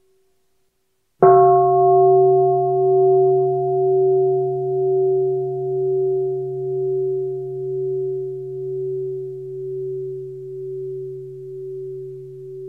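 A deep Buddhist bell struck once about a second in. It rings on with several steady tones and a slow wavering pulse about once a second, fading gradually. It is the bell sounded before a sutra recitation begins.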